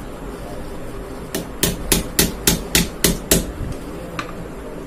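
Hammer striking about eight quick, even blows, roughly three a second, fixing a small plastic fiber junction box (HDB box) to the wall, then one faint tap near the end.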